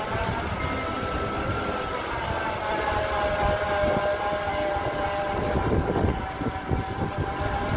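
Electric fat bike's motor whining, a steady multi-toned whine that drifts slowly in pitch, over a low rumble of the fat tyres rolling on hard sand and air rushing past. The rumble turns rougher for a moment about six seconds in.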